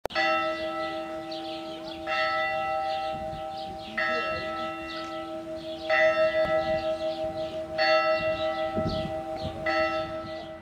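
A bell tolling slowly: six strokes about two seconds apart, each ringing on into the next.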